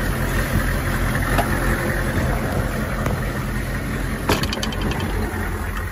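Military truck engine idling steadily during a slave-cable jump start. About four seconds in there is a single sharp click, followed by a few faint ticks.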